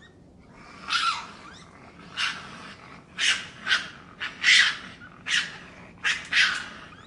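Raccoon giving a series of short, harsh, screechy cries, about eight in all, some with a quick slide in pitch.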